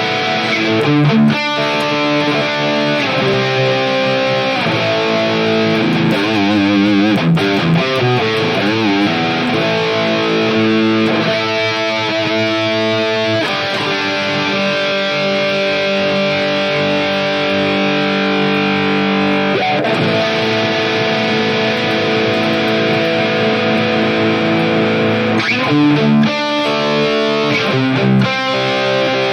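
Electric guitar played through a digital guitar modelling unit on a distorted patch with chorus, with sustained chords and single-note lines.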